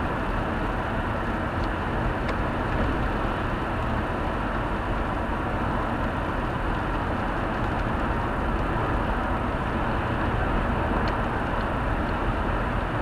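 Steady road noise of a car cruising on a wet sealed road: engine and tyre noise at an even level, heard from inside the cabin.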